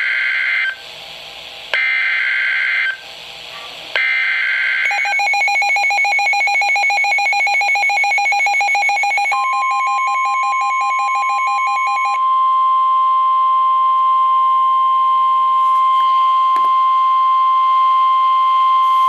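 NOAA Weather Radio alert for a severe thunderstorm warning. It opens with three SAME digital header bursts, each a harsh warbling data screech about a second long. A rapidly pulsing alert beep follows from about five seconds in, and the steady 1050 Hz warning alarm tone starts about nine seconds in and carries on alone once the beeping stops.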